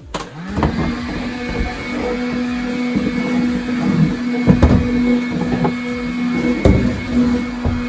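An electric motor switches on and spins up within the first half second, then runs at a steady pitch with a hum. A few knocks sound along the way, the loudest about four and a half seconds in and near seven seconds, and the motor begins winding down at the end.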